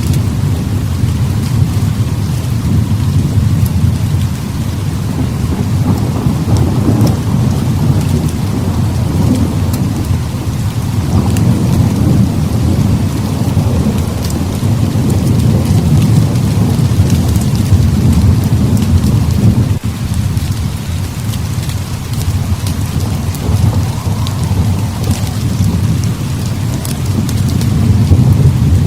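Heavy rain hissing steadily with thunder rumbling low and continuously, swelling and easing every few seconds.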